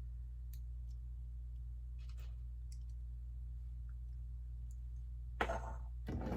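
Plastic Lego bricks clicking and clattering as hands pick through loose pieces and fit them on. There are a few faint single clicks, then a louder clatter about five and a half seconds in and another near the end.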